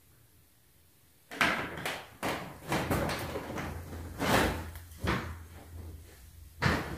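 Irregular scuffing footsteps and knocks, about two a second, starting after a second of silence, with a low steady hum behind them.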